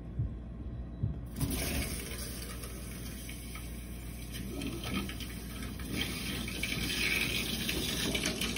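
Water rushing through newly opened plumbing, starting with a steady hiss about a second in after a few small knocks. This is the new water heater's supply being opened to fill and flush it.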